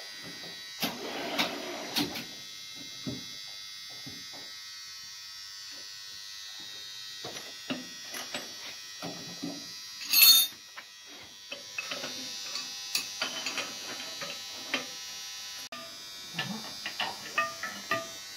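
A jig boring machine running with a steady high-pitched whine, while steel tools and wrenches clink now and then on its table. A sharp metallic clank about ten seconds in is the loudest sound.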